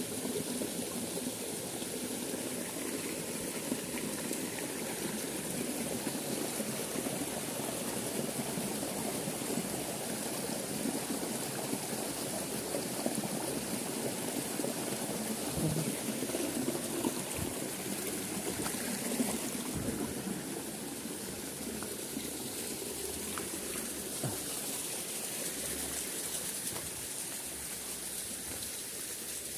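Small stream running steadily, an even rush of flowing water with a few faint ticks.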